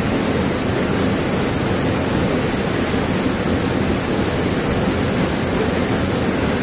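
Steady rushing of a waterfall and river, an even roar of water that holds level throughout.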